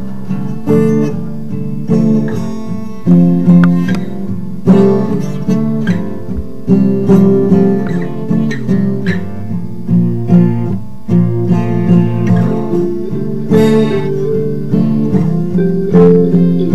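Overdubbed acoustic guitar jam, several guitar parts layered in an improvised blues instrumental, with plucked notes and strums that strike sharply and ring down at a steady pace.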